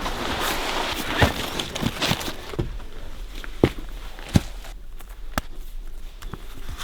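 Footsteps on the winter forest floor, with a run of sharp, irregularly spaced clicks and snaps.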